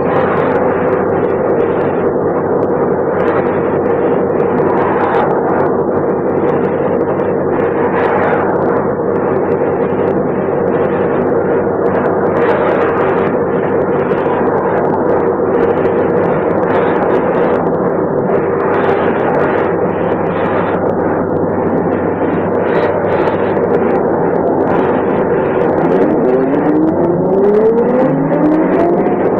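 Diesel engine of a 1988 MAN SL 202 city bus with a manual ZF gearbox, heard from on board. It idles steadily for most of the time, then near the end revs up in a rising pull as the bus sets off.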